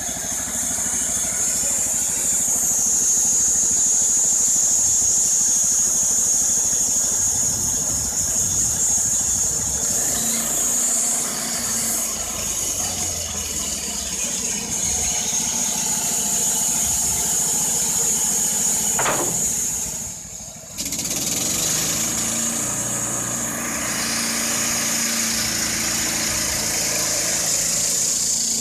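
Wood-Mizer LT15 band sawmill's 15 hp Kohler Pro-15 petrol engine running under load while the band blade saws a board lengthwise off a pine log, with a steady high whine over the engine. The sound dips briefly about two-thirds of the way through, then carries on.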